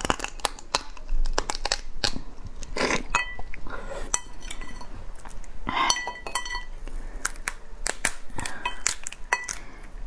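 Shell of a raw soy-marinated crab cracking and crunching as it is pried open, torn apart and bitten, a run of many sharp cracks and clicks.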